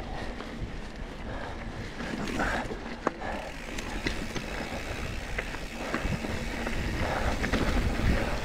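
Mountain bike being ridden along a dirt trail: a steady low rumble of tyres on the ground, with scattered clicks and rattles from the bike.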